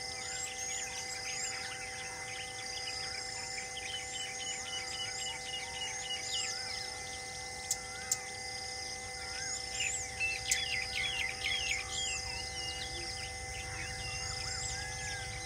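Wild birds chirping and whistling in a busy chorus over a steady insect-like drone, with a couple of sharp clicks about eight seconds in.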